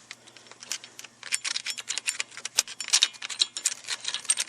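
Quick, irregular metallic clicking and rattling of a loose piece of metal rattling around inside the front wheel hub assembly of a 1999 Jeep Cherokee as it is shaken and knocked.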